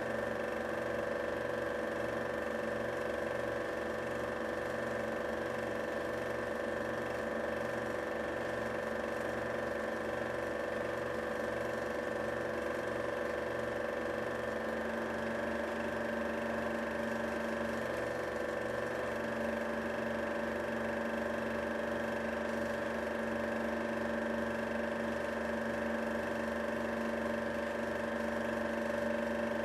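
Film projector running: a steady motor hum with several held tones over the fast, even clatter of the film-advance mechanism. A lower tone joins about halfway through.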